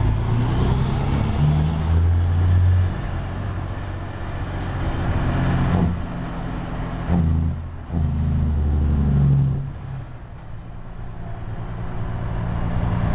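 Caterpillar C15 diesel of a Peterbilt 379 heard from inside the cab, pulling through the low gears of an 18-speed transmission in stop-and-go traffic. The engine note steps up and down with short breaks around six and eight seconds, drops away about ten seconds in, then builds again.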